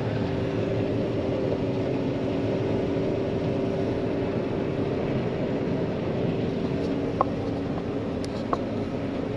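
John Deere 9500 combine running steadily while cutting wheat, a constant machine hum with a few held tones. Two short clicks sound near the end.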